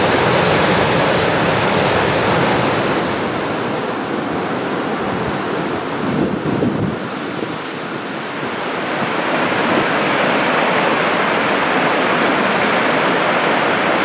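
Fast floodwater of a river swollen by thaw and rain, rushing through rapids and churning into white water: a loud, steady rush that changes in tone about halfway through.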